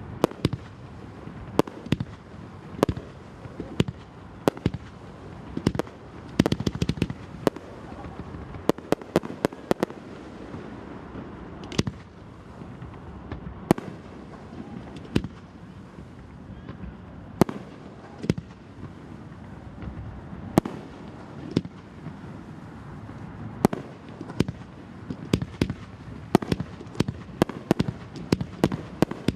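Aerial firework shells bursting overhead: an irregular run of sharp bangs and cracks, at times several a second, over a steady background noise, growing busier near the end.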